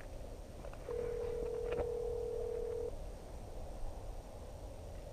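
Ringback tone of an outgoing phone call on speakerphone: one steady tone about two seconds long, starting about a second in. The call is ringing and has not been answered.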